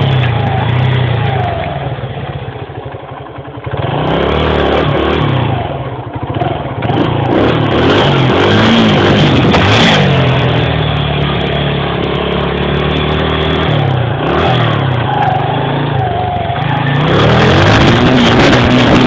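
Honda XR100R dirt bike's single-cylinder four-stroke engine revving up and down as it is ridden, heard close from a phone mounted on the bike. The engine drops back for a moment a few seconds in, then picks up again, and wind rush on the microphone grows near the end.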